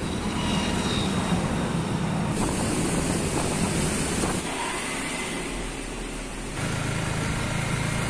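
Street traffic, mostly motorbikes and scooters running past, as a steady hum and rush. The background changes abruptly about two, four and six and a half seconds in.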